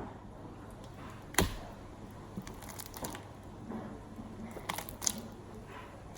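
Hands squishing and poking homemade glitter-glue slime that has not set and has stayed a runny goo, with scattered small sticky clicks and a sharp tap about one and a half seconds in.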